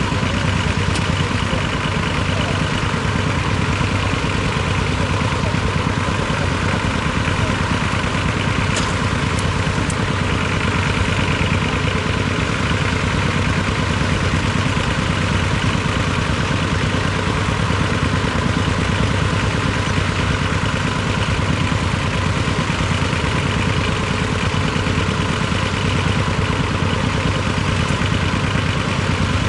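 Small diesel tractor engines running steadily while plowing, chiefly the T-25's two-cylinder air-cooled diesel.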